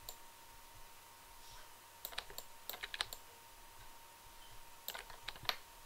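Computer keyboard keys clicking in two short bursts, a few taps about two seconds in and more near the end, over a faint steady electrical hum.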